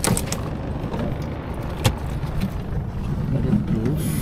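Boat engine running steadily under a wash of water noise, with a single sharp knock about two seconds in.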